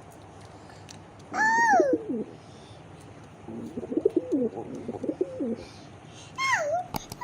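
Pigeons cooing: a run of low, wavering coos in the middle, with two louder, higher calls that fall in pitch, one about a second and a half in and one near the end.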